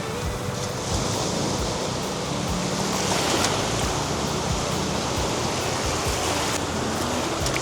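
Sea surf washing onto a beach, a steady rush of waves, with soft background music underneath.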